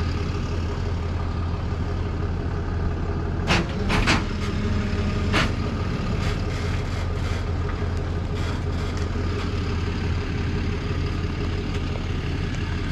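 Tow truck engine running steadily at low speed while it pulls a car on wheel dollies around a tight corner. A few sharp clanks sound about three and a half to five and a half seconds in.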